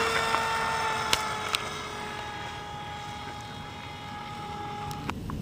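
An RC foam plane's motor and propeller give a steady whine that sinks slightly in pitch and fades as the plane flies away. It stops abruptly near the end, and a couple of sharp clicks come in the first two seconds.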